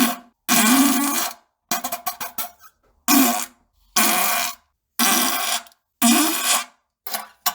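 A string of fart sounds: about seven separate blasts, each under a second long, some held and some sputtering, with short silent gaps between them.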